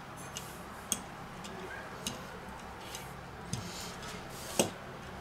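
Wooden rolling pin rolling out cookie dough on a silicone baking mat: faint, irregular clicks and taps, with a sharper one about a second in and another near the end.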